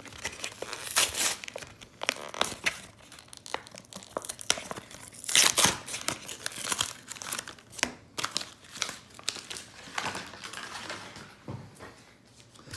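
Plastic blister packaging with a cardboard backing being torn and crinkled open by hand to free trading-card booster packs: irregular crackles and short rips, the loudest tear about halfway through, growing quieter near the end.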